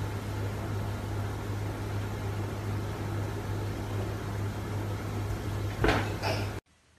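Steady low hum with hiss, like room tone with an appliance running. About six seconds in there is a brief louder scuffle as the dog drops onto its back on the wooden floor, and then the sound cuts off abruptly.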